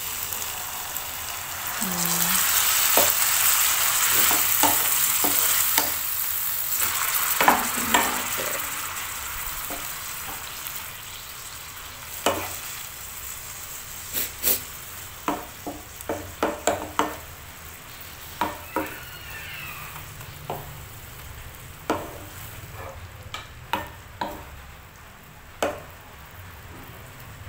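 Water poured into a hot pan of chicken strips sets off a loud sizzle about two seconds in that slowly dies down, while a wooden spoon stirs the food. In the second half, quieter frying with scattered clicks and knocks of the wooden spoon against the pan.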